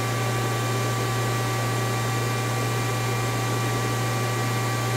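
Steady hum of a powered-up Mazak CNC lathe standing idle with its spindle stopped: a strong low hum with a few faint steady whining tones over an even hiss.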